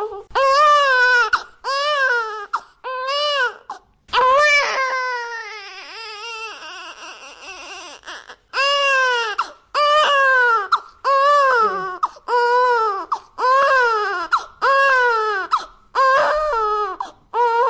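GoAnimate 'Baby Julie' cartoon crying sound effect: a high-pitched voice crying in short, arching wails, roughly one a second. Around the middle comes a longer, quieter, drawn-out falling wail, and then the quick run of sobbing wails resumes.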